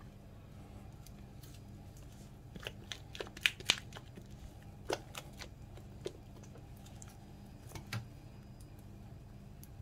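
Thick cake batter being tipped and scraped out of a mixing bowl into a cake pan: scattered sharp clicks and light knocks of the bowl and gloved hand, bunched between about three and four seconds in, with a few more later, over a steady low hum.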